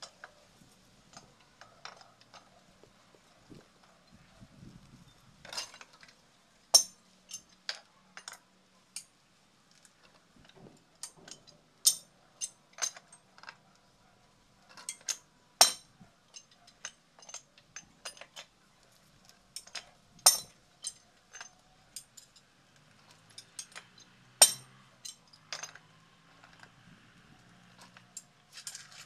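Metal hand tool clinking and tapping against the pipe fittings of a cast-iron hand pump, irregular sharp clicks with a handful of louder strikes a few seconds apart.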